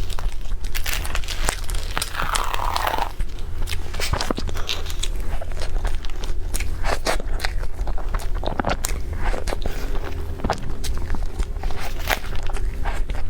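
Close-miked crunchy eating: a person biting and chewing crisp food, with many irregular sharp crunches, over a low steady hum.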